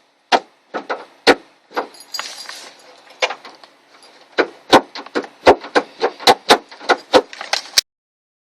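A run of irregular sharp clicks and knocks, a dozen or more, from hard parts and hand tools being handled during car door reassembly. The clicks come closer together in the second half and cut off suddenly near the end.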